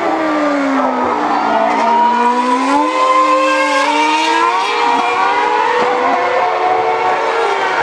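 Formula 1 cars' 2.4-litre V8 engines running on track: the pitch drops over the first two seconds as a car slows for a corner, then rises again as it accelerates away, over a steady hiss.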